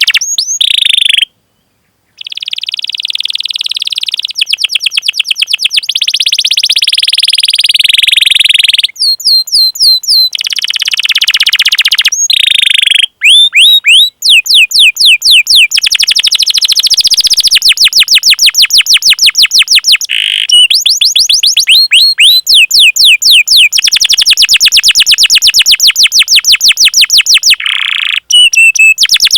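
Domestic canary singing a long song of fast rolling trills, each a rapid run of repeated notes, mixed with quick sweeping chirps and broken by short pauses, one of them about a second in.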